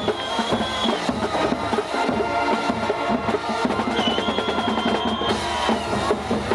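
Drums and percussion playing a steady, rhythmic beat, with a high note held for about a second, twice.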